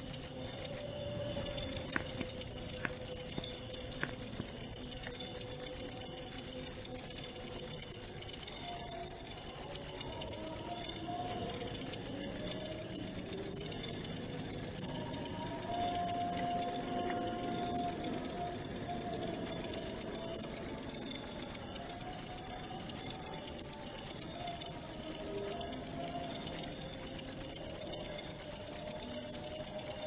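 Cricket chirping in a steady, fast-pulsed, high-pitched trill that breaks off briefly twice, about a second in and again near eleven seconds.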